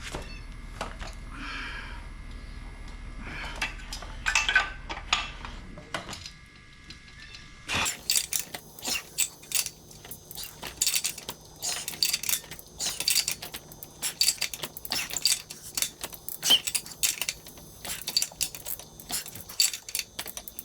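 Metal tools and parts clinking and clattering in irregular sharp clicks as a small-engine pressure washer is worked on by hand, growing busier about eight seconds in.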